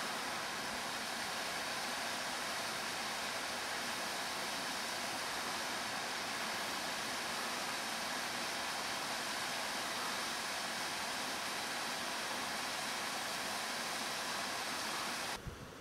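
Small waterfall tumbling down a rocky cliff: a steady rushing hiss of falling water that stops abruptly near the end.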